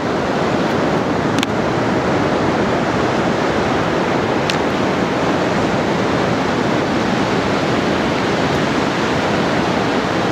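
Surf breaking on a sandy beach: a steady, even rush of waves, with a couple of faint clicks about 1.5 and 4.5 seconds in.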